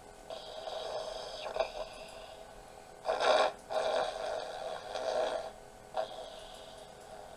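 Snoring, in irregular surges of varying length, with the loudest short burst about three seconds in.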